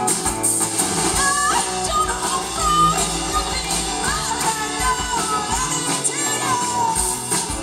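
Live rock band playing: a woman singing lead over acoustic guitar, electric guitar, bass guitar and drums, the vocal line coming in about a second in.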